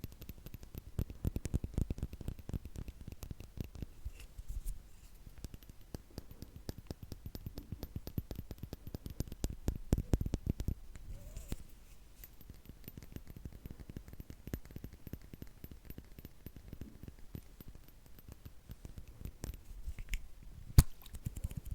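Close-miked ASMR trigger sounds: dense, soft crackling and scratching right at the microphone, with one sharp click near the end.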